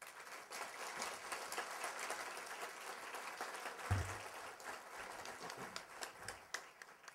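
Audience applauding: dense clapping that starts suddenly and thins out near the end, with a low thump about four seconds in.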